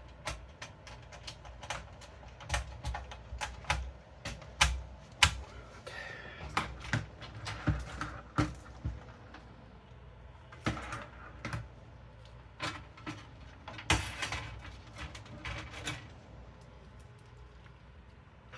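Irregular clicks, taps and knocks of hardware and cables being handled and fitted inside a computer case, with the sharpest knocks about five seconds in and again near the middle.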